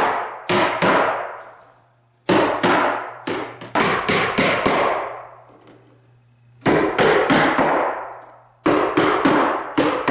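Claw hammer driving the nails of carpet tack strip down into a wooden plank floor: sharp blows with a brief ring after each, in four quick runs of a few strikes with short pauses between.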